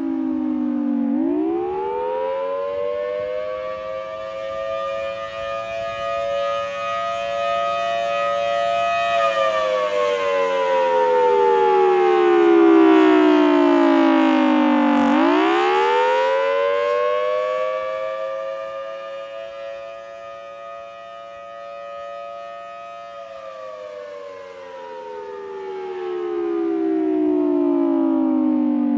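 Federal Signal Thunderbolt 1000T outdoor warning siren sounding the attack signal: its pitch climbs quickly about a second in, holds high for about eight seconds, slides down for about six, then climbs and holds again before falling once more, starting to rise again at the very end. Its loudness swells and fades slowly as the rotating siren sweeps its sound around.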